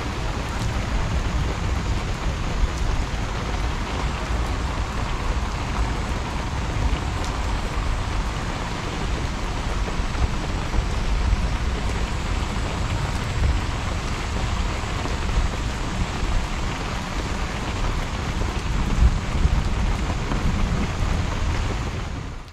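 Heavy monsoon rain pouring steadily onto a wet street and pavement, with a low rumble underneath. The sound fades out at the very end.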